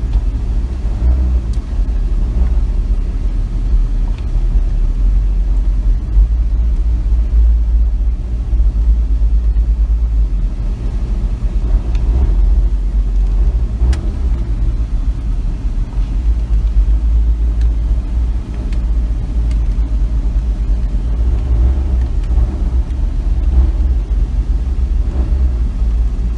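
Bagged Chevrolet Silverado pickup driving, a steady low rumble of engine and road noise.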